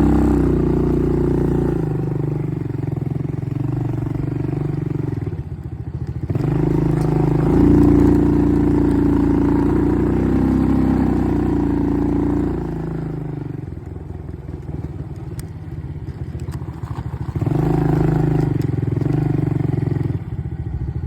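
ATV engine running under way, pulling harder and easing off several times: strong at the start, again for a long stretch from about six seconds in, and once more near the end, quieter in between.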